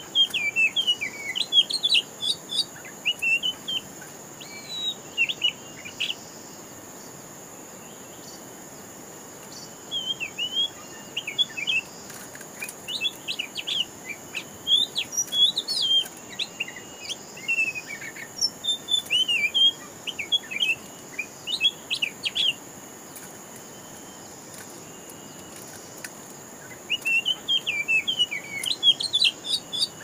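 Oriental magpie-robins singing in bursts of quick, varied chirping phrases, with short pauses between the bursts. A steady high insect drone runs underneath.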